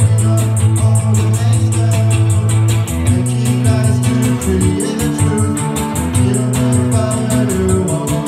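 A lo-fi punk/cold-wave band playing live: an electric guitar, a Fender Jaguar through an amp, over a held bass line and a fast, even beat. The bass note changes about three seconds in.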